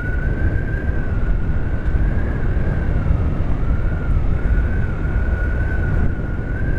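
Motorcycle riding at steady speed: heavy wind rumble on the microphone over the engine, with a thin high whine that wavers slightly in pitch.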